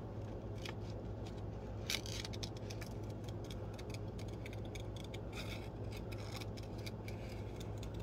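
Small scissors snipping around a cardstock tag in many short cuts, a run of light clicks over a steady low hum.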